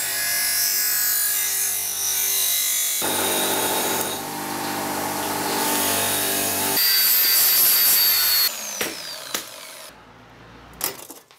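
Workshop power tools running in a string of short cuts: motor whine with cutting or grinding noise that changes abruptly every few seconds, then a few knocks and clatter near the end.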